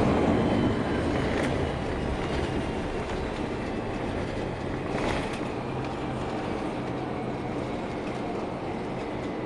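Airliner cabin noise on the ground after landing: a rumble from the wheels rolling on the runway that fades over the first two seconds as the aircraft slows, then a steady engine hum with a single bump about five seconds in.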